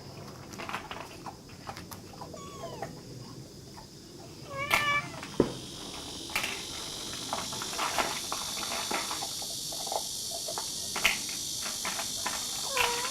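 Young kitten meowing: short, high calls about three times, the loudest about five seconds in, among light rustling and clicks.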